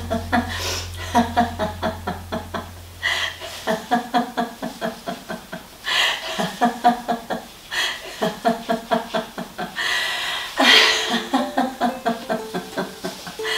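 Sustained laughter-yoga laughing: runs of rapid 'ha-ha-ha' pulses, about five a second, broken every couple of seconds by short gaps. A low steady hum sits under the first few seconds and stops about four seconds in.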